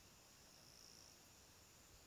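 Near silence with a faint, high-pitched insect chorus: a steady thin buzz, with one longer trill swelling and fading in the middle.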